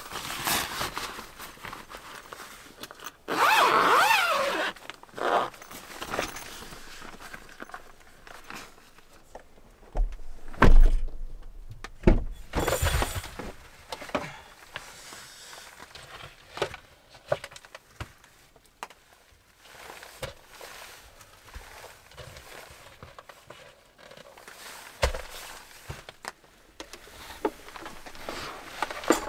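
Handling noises in a car interior: fabric rustling and rubbing, then a series of knocks and thunks as things are put down. The loudest are a heavy thump and a clatter about halfway through, with scattered small clicks after.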